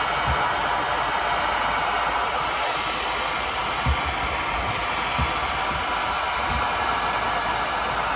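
Handheld hair dryer blowing steadily, aimed into an iced-up refrigerator air vent to melt the frost. A few soft low bumps come through now and then.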